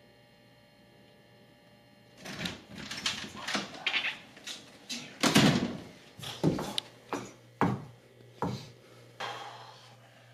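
Quiet room with a faint steady electrical hum, then about two seconds in an interior door opens and a string of knocks, bumps and rustles follows as someone comes through it and moves about close by.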